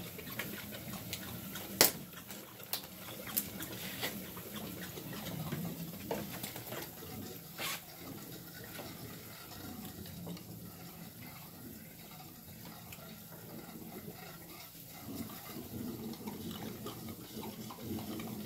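Water churning and bubbling in an aquarium test tank, stirred by a pump feeding DIY venturis that inject air. A few sharp clicks and knocks sound over it, the loudest about two seconds in.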